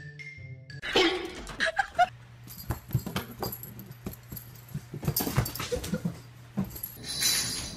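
A pet's short, high whimpering cries, followed by scuffling knocks and bumps as animals tussle.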